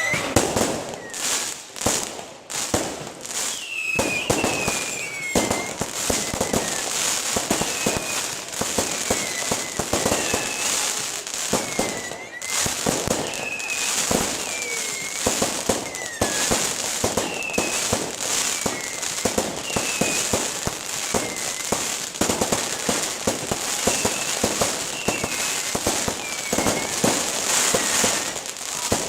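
Aerial fireworks bursting and crackling continuously, a dense stream of pops and bangs. Short falling whistles recur every second or two throughout.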